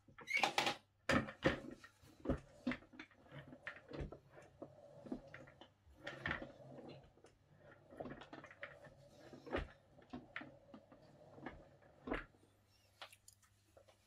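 Office chair with rollerblade-style polyurethane casters being handled and pushed across a wooden floor: irregular knocks and clacks from the plastic base and wheels, with a soft even rolling rumble between them. The knocks are heaviest in the first couple of seconds.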